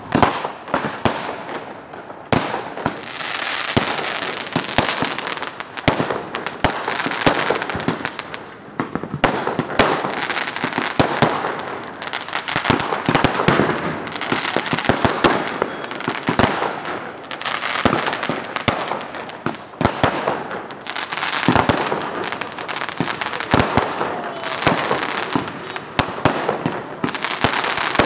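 Firecrackers going off in a dense, continuous barrage of sharp bangs and crackling, many a second, with aerial fireworks bursting overhead.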